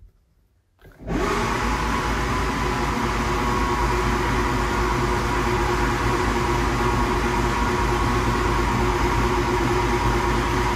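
Classic Mini A-series engine being cranked over on its starter motor, a steady whir that starts about a second in and runs without the engine firing while the oil pressure builds. It is the oil-pressure test before first start of the newly turbocharged engine.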